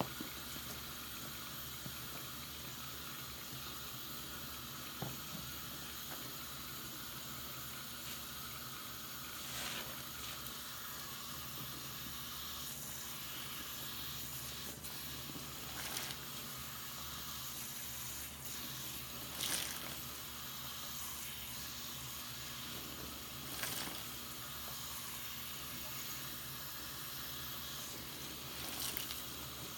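Tap water running steadily into a sink of soap suds while a soaked bath sponge is squeezed under the stream, with about five brief louder squishes and splashes.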